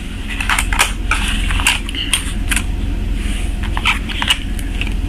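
Thin clear plastic takeaway meal tray being handled, its lid crackling and clicking irregularly, over a low steady hum.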